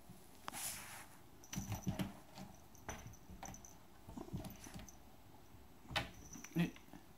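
Siamese cat scuffling and swatting: an irregular run of taps, scratches and thumps from its paws and claws on the tile floor, with two louder knocks near the end.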